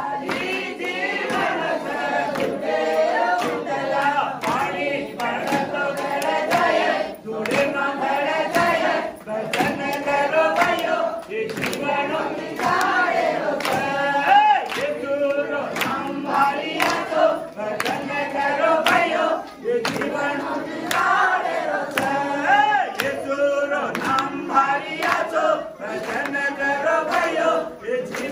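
A congregation of men and women singing a worship song together, with hand claps on the beat.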